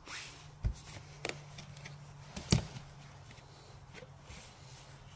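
Handling noises around a tabletop vacuum pump being filled with oil: three sharp knocks, the loudest about two and a half seconds in, with rubbing and light clicks between them, over a faint steady low hum.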